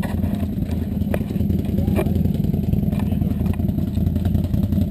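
ATV engine running steadily, with a few sharp knocks and clatters over it.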